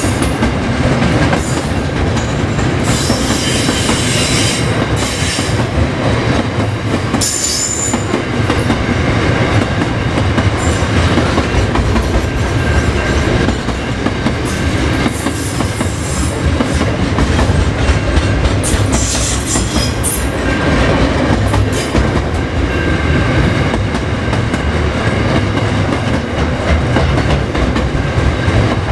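Freight train rolling past at steady speed, its wagon wheels clattering on the rails, with brief high-pitched wheel squeals now and then.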